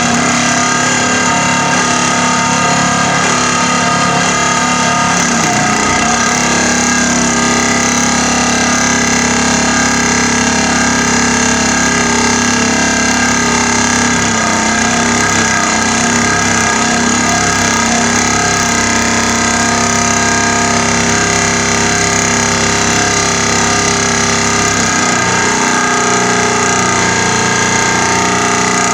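Pile driver sinking a rolled steel profile pile into the ground: a very loud, steady mechanical drone made of many held tones, with no separate blows. Some of the lowest tones drop away about 25 seconds in.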